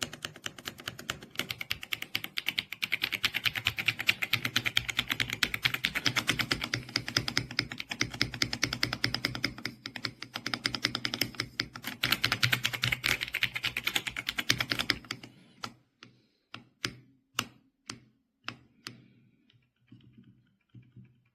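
Fast typing on a mechanical keyboard, a dense run of key clacks. About fifteen seconds in it slows to roughly ten single, separate key presses, then stops.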